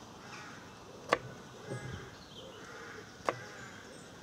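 A kitchen knife knocking sharply on a wooden chopping board twice, about two seconds apart, while a vegetable is chopped by hand.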